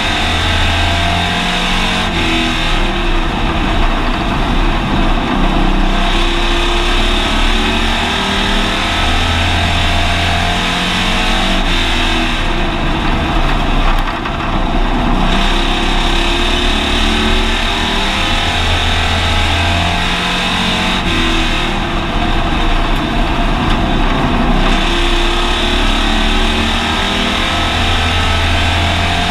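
Hobby stock race car's engine at race pace, heard from inside the cabin. Its note swells and eases in a cycle about every ten seconds, once a lap of the oval, running hard on the straights and backing off through the turns.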